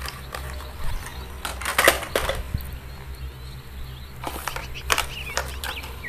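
Plastic toy vehicles being handled and set down on artificial grass: a scattered series of light clicks and knocks, over a steady low hum.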